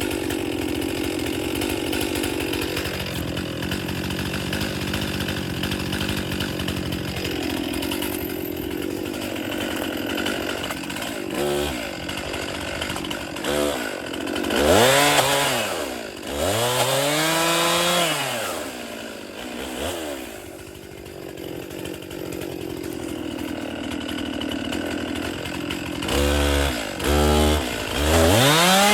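Stihl chainsaw running steadily under load for about ten seconds, cutting frozen dead wood, then revved up and down several times, each rev rising and falling in pitch, with another cluster of revs near the end.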